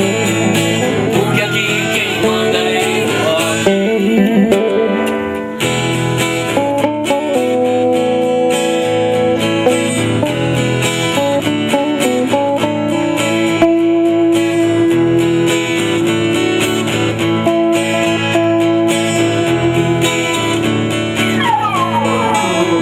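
Rock band playing an instrumental break with guitars, including a long held lead note and some sliding, bent notes near the end.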